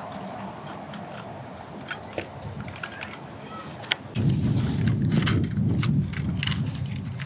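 Handling noise: small clicks and rustles as a DJI Mini 3 Pro drone is taken out and its folding arms are swung open, with a loud low rumble on the microphone from about four seconds in.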